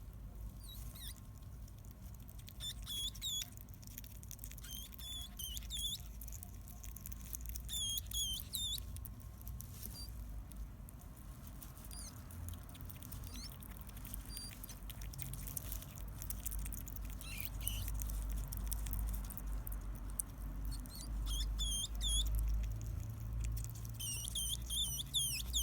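Seven-day-old baby hedgehog peeping: high-pitched squeaks, each a quick swoop in pitch, in short bursts every few seconds, the calls of a hoglet searching for its mother. A low rumble runs underneath.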